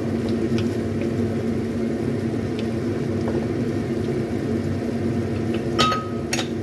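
Wooden spatula stirring a vegetable stir-fry in a wok, with faint scrapes and taps and two sharper knocks near the end, the first with a short ringing tone, over a steady low hum of kitchen machinery.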